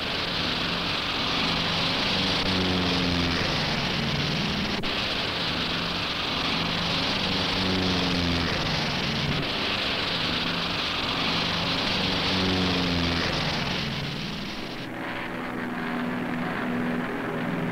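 Propeller-driven C-119 cargo planes, twin piston engines running at high power on the takeoff roll, a steady noisy roar. About 15 seconds in it gives way to a softer, steadier engine drone.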